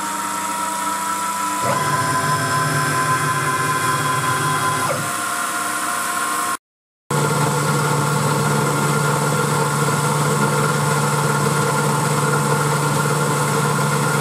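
Boxford 190VMCi CNC mill spindle running with a steady whine while an end mill takes light cuts across the end of a metal part. The sound gets louder and steps up in pitch about two seconds in, then drops back. A brief silent gap about halfway through is followed by steady cutting again.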